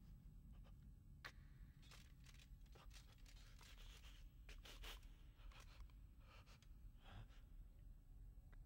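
Near silence: a faint low hum with scattered soft clicks and a few faint breathy rustles.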